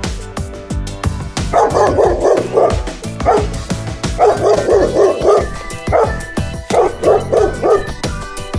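Dog barking in quick runs of several barks, starting about a second and a half in, over background music with a steady beat.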